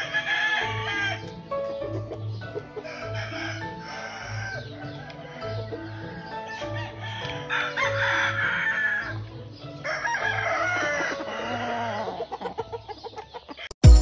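Gamefowl roosters crowing several times over background music with a steady beat; a sharp, loud click near the end.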